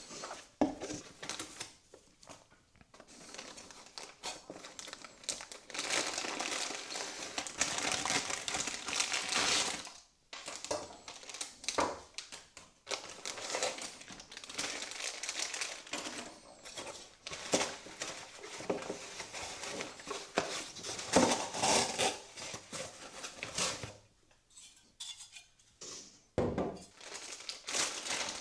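Irregular crinkling and rustling of packaging with small clicks and clinks of parts being handled, as computer components are unpacked and fitted.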